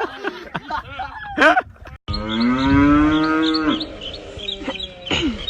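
A cow mooing once, one long low call lasting just under two seconds, starting about two seconds in.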